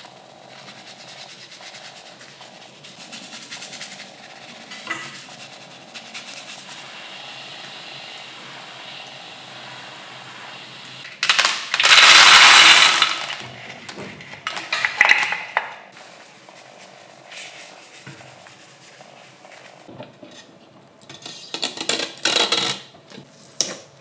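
Cleaning sounds on a coffee grinder's bean hopper: a bristle brush scrubbing a soft, steady scratch, then a loud hissing burst lasting about two seconds around the middle. Crackling scrapes and clicks come near the end.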